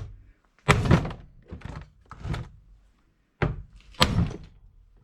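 Hammer blows on the Easy Bake Oven's housing: about five separate thuds, irregularly spaced, as the hole for the power cord is forced wider.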